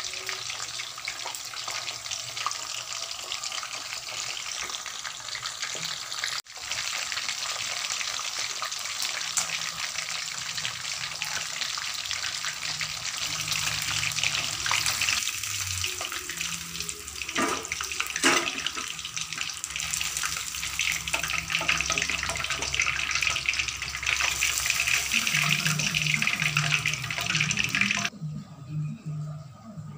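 Marinated chicken pieces frying in hot oil in a wok: a steady, dense sizzle and crackle that cuts off abruptly near the end.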